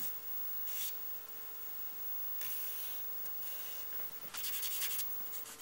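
A charcoal stick scraping across drawing paper in several short shading strokes.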